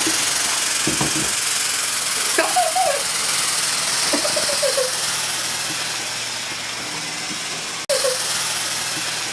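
Small plug-in fog machine running and blowing out fog with a steady hiss. A few brief voice sounds come over it, and the sound cuts out for an instant near the end.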